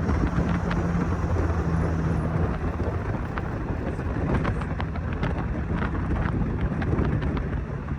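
A car driving: steady engine hum and road and wind noise from inside a moving taxi, the engine's tone shifting about two and a half seconds in, with scattered small rattles and clicks.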